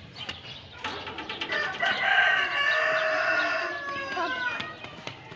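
A rooster crows once: one long call starting about two seconds in, holding for about two seconds and then trailing off.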